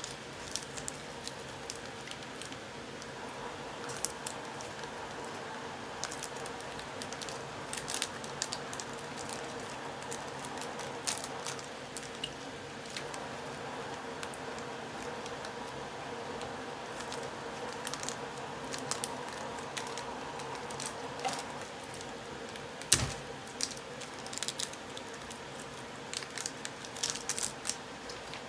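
Small clear plastic bag crinkling and rustling in the fingers as it is opened, with scattered light clicks and one sharper snap about four-fifths of the way through, over a faint steady hum.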